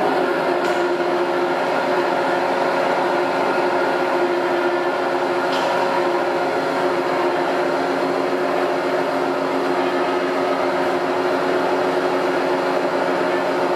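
Petzholdt PDSM double-screw mixer running, its drive giving a steady mechanical hum with several steady tones.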